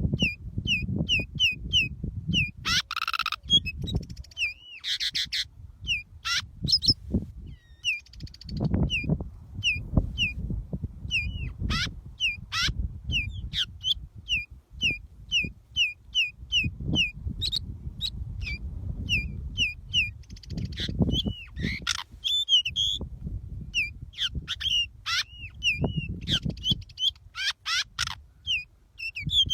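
Pied bushchat calling: runs of short high chirps, about three a second, broken by a few harsher rasping notes and sharp clicks, over a low rumble.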